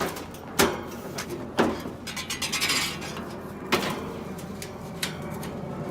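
Four separate sharp metallic knocks and clanks, with a short scraping hiss near the middle.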